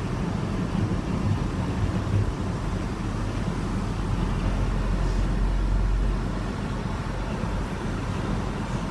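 Steady low rumble of a moving car's engine and tyres on the road, heard inside the cabin, swelling a little for a couple of seconds near the middle.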